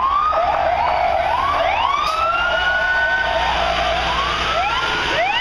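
Emergency sirens from a passing fire ladder truck and police cars sounding together: a fast repeating yelp overlapping slower rising wails. Underneath is the low rumble of the truck's engine.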